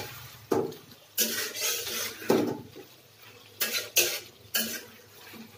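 A metal spatula scraping and clanking against an aluminium karai as pieces of ash gourd are stirred and fried down in spiced oil, in a series of irregular strokes.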